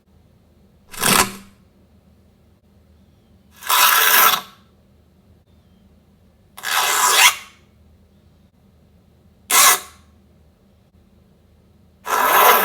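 Five separate bursts of noise a few seconds apart: two short, sharp ones about a second in and near ten seconds in, and three longer, rough scraping ones lasting under a second each.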